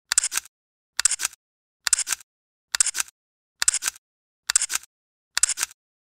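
Camera shutter sound effect, repeated seven times at about one a second. Each is a quick cluster of clicks, with dead silence in between.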